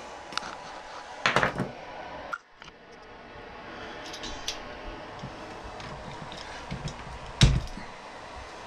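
Small metal parts clicking and rattling in a magnetic parts tray, then quiet hand-tool handling with one sharp metal click from locking pliers near the end.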